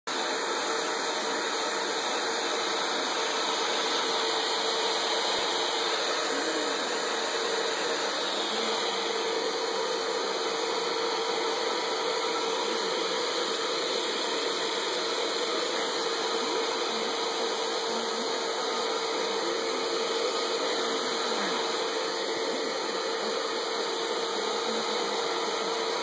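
Handheld blow dryer running steadily while drying a dog's coat: an even rush of air with a constant hum.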